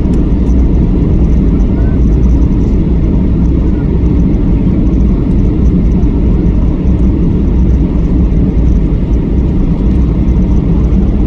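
Steady low cabin rumble inside a Boeing 737-800 descending on approach: its CFM56 turbofan engines and the airflow over the fuselage, heard from a window seat.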